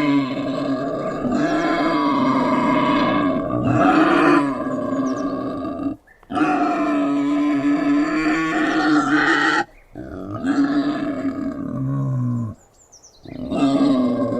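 Wild boar grunting in long, drawn-out calls, broken by short pauses about six, nine and a half, and twelve and a half seconds in.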